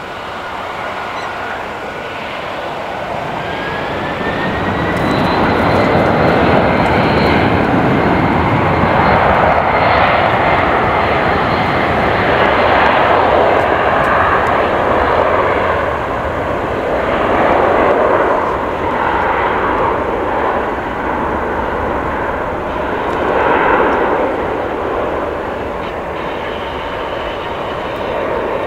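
A Boeing 747 freighter's four jet engines spooling up with a rising whine over the first few seconds, then a loud steady roar at takeoff thrust as the aircraft rolls down the runway.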